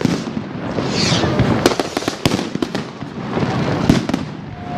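A big fireworks display: many bangs and cracks going off in quick, irregular succession over a steady background of crackling, with a short hiss about a second in.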